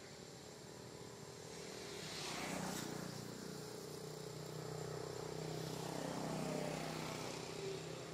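An engine running steadily, growing louder about two seconds in.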